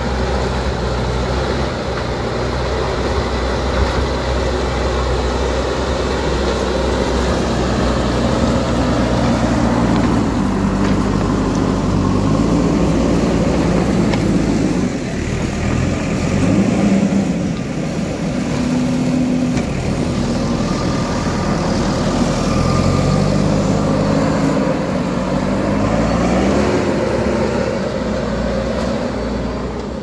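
JCB backhoe loader's diesel engine running close by, steady at first, then revving up and down again and again in the second half as the machine works its bucket and drives.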